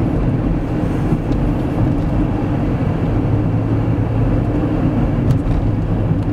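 Steady engine and tyre drone of a moving car, heard from inside the cabin.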